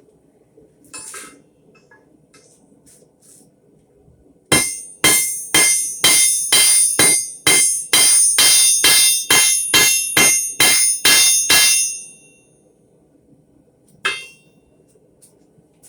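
Blacksmith's hammer striking hot steel on an anvil: a run of about twenty ringing blows at roughly three a second, setting a forge weld. A lighter single clink of metal comes shortly before and again shortly after the run.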